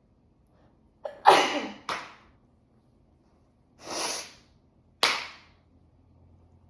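A person sneezing several times in a row. The loudest sneeze comes about a second in and a shorter one follows right after. A softer one without a sharp start comes about four seconds in, and a last sharp sneeze near five seconds.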